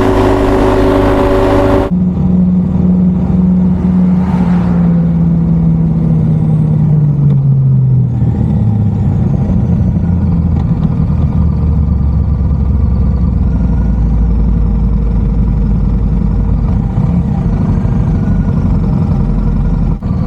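Motorcycle engine running on the move, with rushing wind. About two seconds in the sound cuts to a new shot, where the engine note drops steadily for several seconds as the bike slows, then settles into a steady low run.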